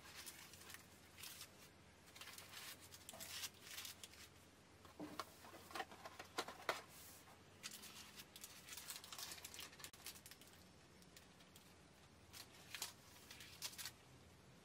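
Faint rustling and crinkling of egg tarts' paper liners and flaky pastry crust being handled, in short scratchy bursts that come and go.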